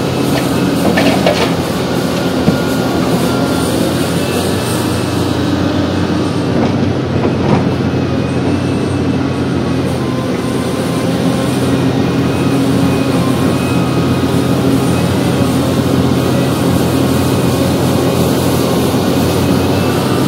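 Liebherr R 984C hydraulic excavator's diesel engine running steadily under load through its dig-and-dump cycle, with a few knocks and clatters of rock and soil dropping into a steel dump-truck body.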